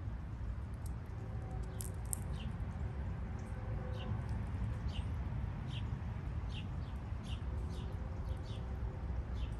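A bird calling over and over, short falling chirps about once or twice a second, over a steady low rumble.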